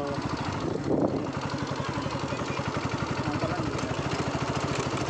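Motorcycle engine running steadily while being ridden, an even pulsing hum with no change in pace.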